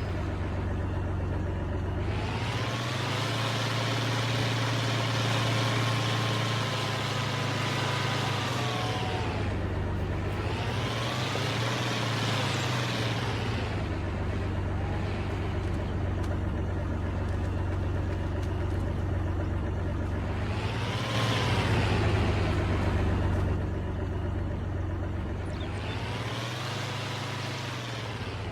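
A large engine running steadily throughout, with a whine and rushing noise that swell and fade several times.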